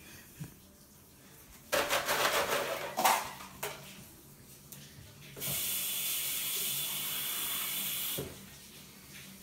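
Bathroom sink faucet running: an uneven gush and splash of water about two seconds in, then the tap runs steadily for about three seconds and is shut off abruptly.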